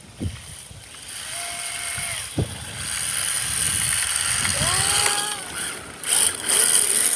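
Traxxas Ultimate RC car being driven on hard 3D-printed drift wheels: its electric motor whines up and down in pitch over a loud hiss of the plastic wheels skidding on the ground. There are two sharp knocks in the first few seconds.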